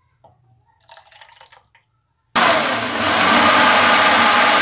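Faint ladling of liquid chutney into a glass blender jar, then about halfway through an electric blender switches on and runs steadily, blending tamarind and date chutney to a smooth purée.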